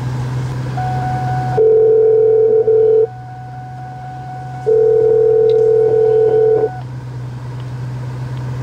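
Telephone ringback tone of an outgoing Bluetooth call, played through the BOSS BV9364B head unit's car speakers: two rings of about one and a half to two seconds each, a couple of seconds apart. A fainter steady higher tone lies under them, and a low steady hum runs throughout.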